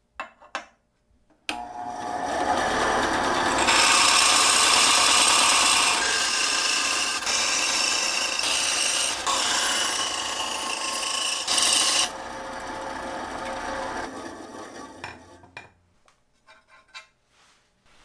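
Bandsaw cutting through a small workpiece: a harsh, steady rasping of the blade in the cut, starting about a second and a half in. The cutting noise stops abruptly about twelve seconds in, the saw runs on more quietly and dies away, and a few light clicks follow near the end.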